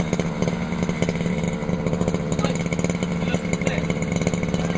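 Small engine of a model car running at a steady speed, a constant buzzing drone with no clear revving up or down.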